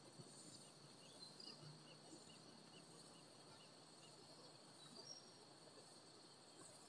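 Near silence: faint insects droning steadily in the background, with a run of faint short chirps about two a second in the first few seconds.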